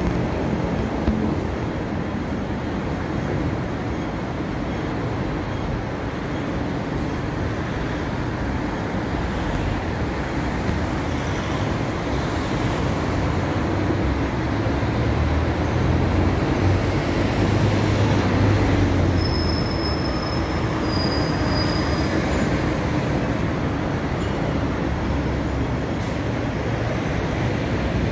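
Busy city street traffic: a steady low rumble of passing vehicles that swells in the middle. There are two brief high squeals about two-thirds of the way through.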